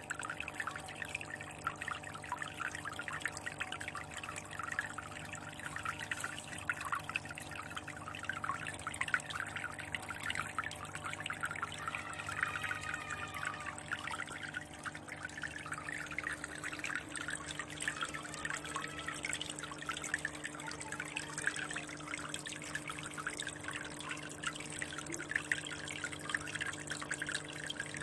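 Water trickling and dripping into a fish tank from a spout, a steady, dense patter of small splashes over a low, even hum.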